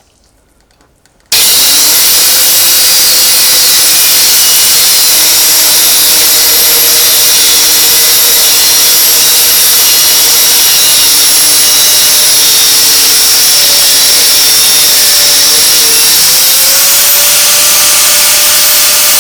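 Angle grinder switching on about a second in and running loud and steady with its cutting disc, cutting into a metal rod. Its whine rises a little in pitch about sixteen seconds in.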